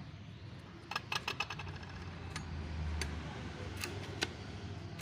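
Scattered light metallic clicks and taps, a quick run of them about a second in, as the dual-clutch release bearing, broken and fully seized, is handled. A low hum rises briefly in the middle.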